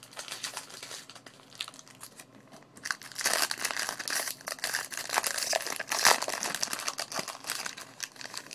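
Foil wrapper of a Pokémon trading card booster pack crinkling and tearing as it is pulled open by hand. Soft crinkles at first, then louder, dense crackling from about three seconds in, loudest about six seconds in.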